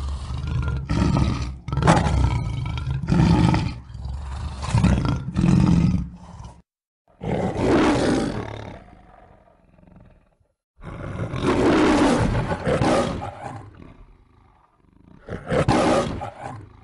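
Lion roaring: a run of short, deep grunting roars about once a second, then three longer roars with pauses between them, each trailing off.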